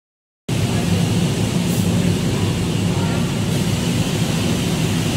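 Pressure washer spraying water onto a semi truck: a loud steady rushing hiss with a low hum under it, starting abruptly about half a second in.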